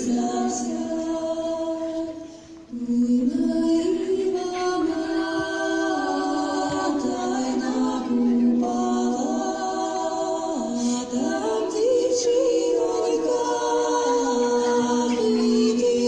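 A choir singing unaccompanied in long, held phrases, with a short break about two and a half seconds in.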